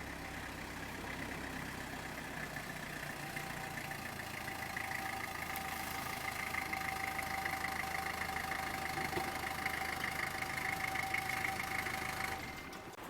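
A motor vehicle engine running steadily, joined about three seconds in by a steady whine; both cut off abruptly near the end.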